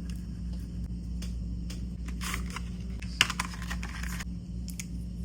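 Small clicks and scraping of hand tools and parts against a smartphone during screen replacement. The loudest is a sharp click a little past three seconds in. A steady low hum runs underneath.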